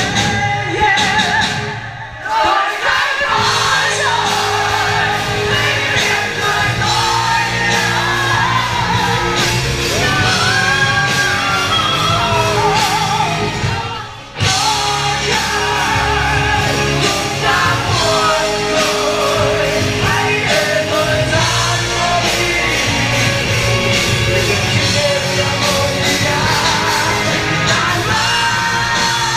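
Live rock band performing, with a male lead singer singing and at times shouting over guitars, bass and drums. The band drops out briefly about two seconds in and again about fourteen seconds in.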